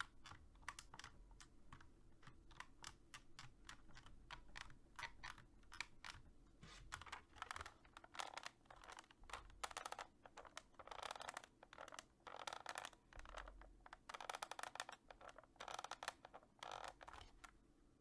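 Plastic casing of a SteelSeries 7G mechanical keyboard creaking as the board is twisted in a bend test. Its keys and keycaps click and rattle along with it: many faint, irregular clicks with longer scraping creaks between them.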